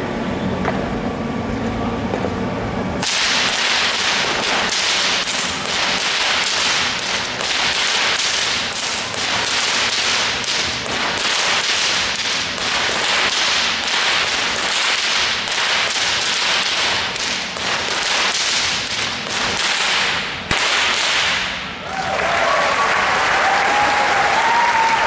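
Two whips cracked in a fast, unbroken string of sharp cracks, several a second, starting about three seconds in and stopping shortly after three-quarters of the way through. Applause follows near the end.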